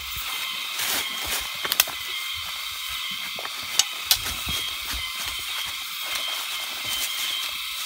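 Steady high hiss of forest insects, with a handful of sharp clicks and snaps from people walking through the undergrowth, the loudest about four seconds in.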